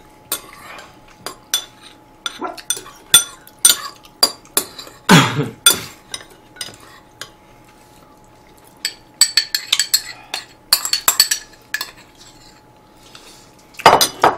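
Metal spoons and chopsticks clinking and scraping against ceramic bowls and plates while two people eat, in irregular sharp clicks with a quick run of clinks about nine to eleven seconds in and a couple of louder knocks. A faint steady tone runs underneath.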